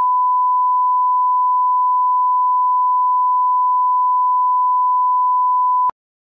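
1 kHz line-up reference tone played with broadcast colour bars: a single steady, unwavering beep that cuts off abruptly near the end.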